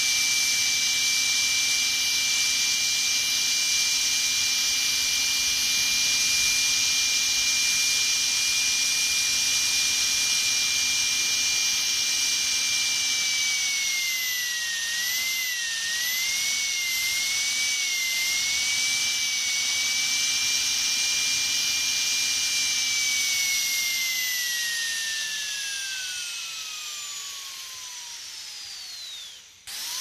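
Dentist's drill whining at a high, steady pitch; about halfway through the pitch wavers up and down for several seconds. Near the end it winds down with a falling pitch and stops, then starts spinning up again with a rising whine.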